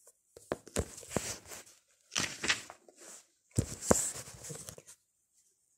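Faint paper rustling with a few sharp clicks, in three short spells, like pages being handled.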